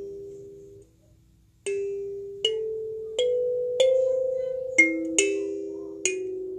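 Kalimba's metal tines plucked one note at a time in a slow melody, each note ringing on and fading under the next. The first notes die away to a short pause about a second in, then about seven plucks follow, roughly one every three-quarters of a second.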